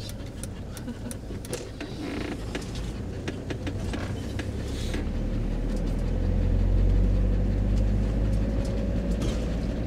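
Motorhome engine and road noise heard from inside the cab while driving, a steady low hum with scattered light clicks. It grows louder about halfway through.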